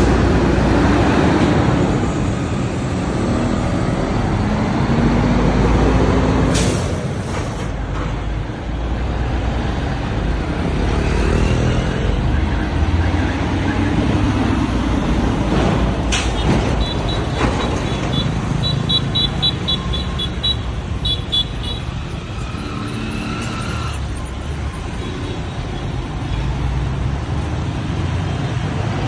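Diesel tractor-trailer truck driving slowly past at close range amid street traffic and motorbikes. The engine rumble is heaviest in the first few seconds. A run of short, high-pitched beeps sounds about two-thirds of the way through.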